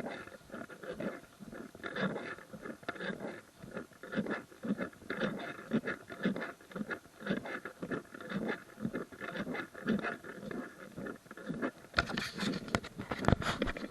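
Footsteps of a hiker walking steadily along a trail, about two steps a second. There are a few sharp clicks and rustles near the end.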